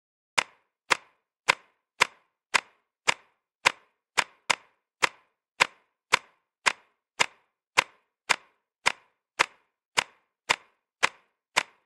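Regular ticking: sharp, evenly spaced clicks, a little under two a second, starting about half a second in, with dead silence between them.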